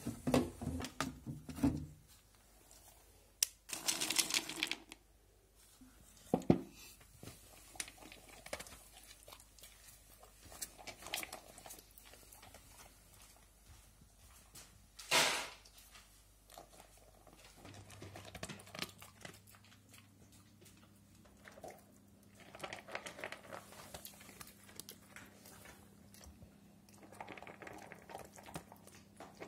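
Dogs eating dry kibble from a plastic bowl: irregular crunching and clicking of the kibble against the bowl, with a few louder knocks from handling the plastic food bin near the start. A faint steady hum comes in about halfway through.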